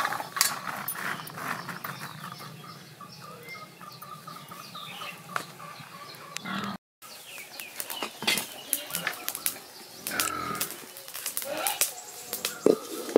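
Loose corn kernels clicking and rustling in a metal tray as hands stir through them, with birds chirping in the background. The sound drops out briefly about seven seconds in.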